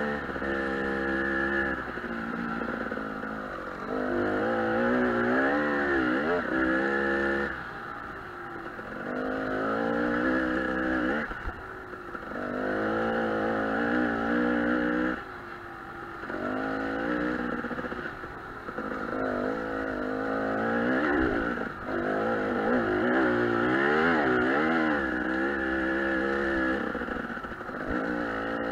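Dirt bike engine heard from on board while riding, revving up and down over and over as the throttle is opened in runs of two or three seconds and briefly closed between them.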